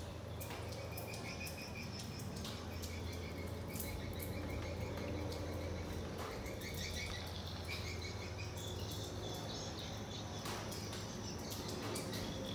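Outdoor ambience: small creatures chirping in repeated rapid trills over a steady low hum, with scattered light clicks.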